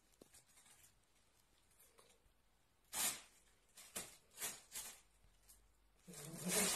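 A plastic bag crinkling in short bursts as a cat paws and pounces on it: a first rustle about three seconds in, a few more a second later, then a louder, longer scuffle near the end.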